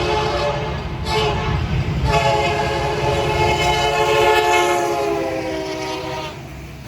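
Nathan K3LA five-chime locomotive air horn: a blast ends just after the start, a short blast follows about a second in, then a long blast lasts about four seconds, its chord dropping in pitch toward the end as the locomotive passes. The train's rumble runs underneath.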